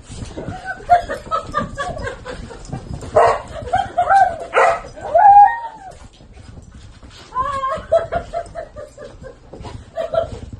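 Huskies vocalizing while they play-fight: short yips and whines, with louder calls that bend in pitch a few seconds in, then a quick run of short yips.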